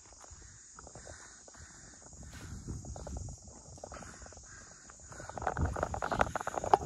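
Crickets chirring steadily, a continuous high-pitched drone, with irregular scuffing and crunching sounds that grow louder in the last couple of seconds.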